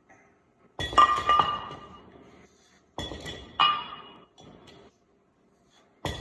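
Metal gym weights clanking against each other with a ringing tone, three times, each a double clank about half a second apart.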